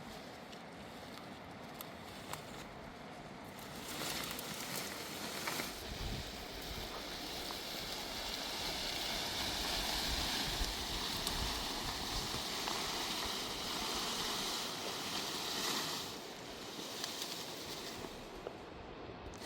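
Rushing river water, a steady roar that swells louder midway and then eases off.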